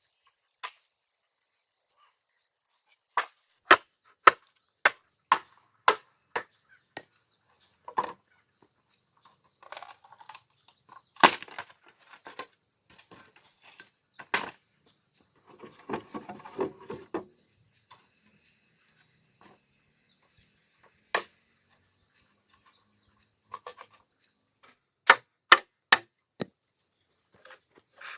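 Chopping blows of a blade into wood: a run of sharp strikes about two a second, then a crackling, splintering stretch, and more scattered strikes near the end.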